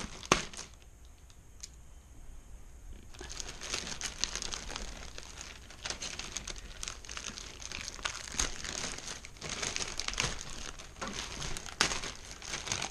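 Plastic packaging being crinkled and pulled off a PC case, a dense irregular crackle with many small clicks. A sharp knock comes just after the start, and the crinkling picks up after about three seconds.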